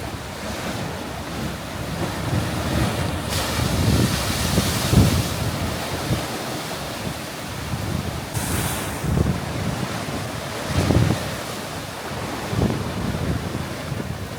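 Ocean waves surging and churning in a narrow rock channel, with a bright splashing hiss a little past halfway. Wind buffets the microphone with low rumbling gusts.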